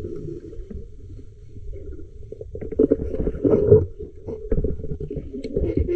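Muffled underwater noise picked up through a waterproof camera housing: rumbling water movement and handling knocks as the diver swims, with louder bursts about three and four seconds in and again near the end.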